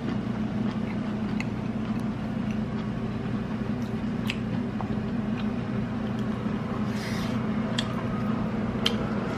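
A steady low hum with a few faint, sharp clicks scattered through it and a brief rustle about seven seconds in.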